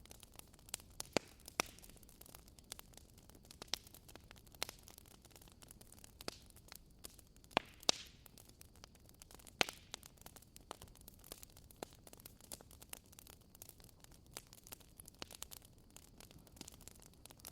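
Fireplace fire crackling: irregular snaps and pops over a soft steady hiss, with a few louder pops scattered through.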